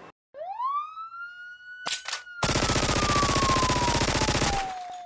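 Outro sound effect: a single siren wail that rises quickly and then slowly falls. About two seconds in come two short shots, then a rapid burst of automatic gunfire lasting about two seconds.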